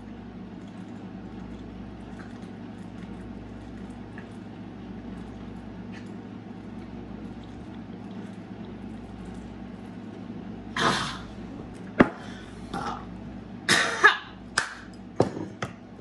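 A low, steady room hum for about ten seconds, then a woman coughing and gasping several times after chugging a bottle of beer, with a few sharp knocks among the coughs.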